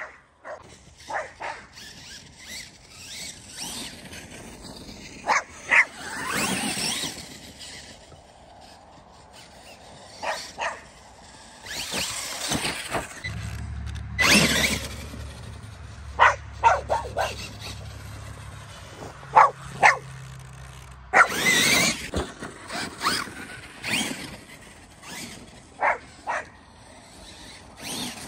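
A small dog barking repeatedly in short yaps, over the electric motor of a Losi King Sling RC monster truck whining in several bursts of acceleration.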